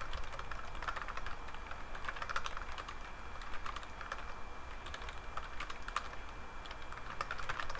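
Typing on a computer keyboard: irregular keystrokes in short runs as terminal commands are entered.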